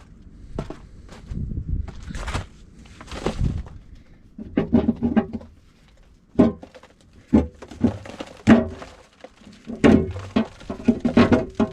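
Irregular metal knocks and clanks of hand tools and bolts against an excavator's final drive cover plate while its bolts are being removed, some of the knocks ringing briefly.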